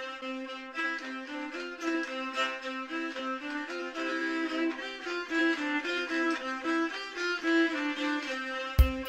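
Background fiddle music, a tune of quick stepping notes. Near the end a series of sharp knocks comes in.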